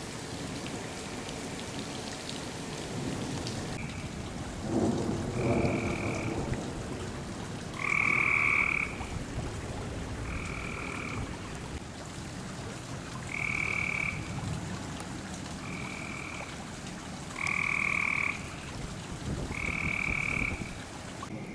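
Frogs calling in short trills, about eight calls a few seconds apart, over a steady hiss of rain. There is a louder low rumble about five seconds in.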